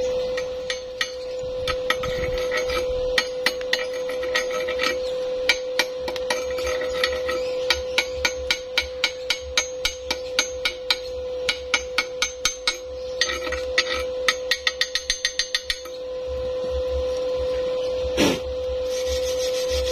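Chipping hammer knocking the slag off a fresh stick-weld bead on steel: quick, irregular metallic taps, with a fast run of taps late on before they stop.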